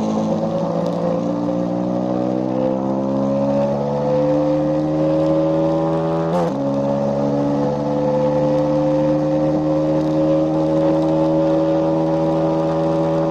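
KTM Duke 390's single-cylinder engine pulling hard under full acceleration, its pitch rising steadily. About six and a half seconds in the pitch drops sharply with an upshift, then it climbs again more slowly in the higher gear.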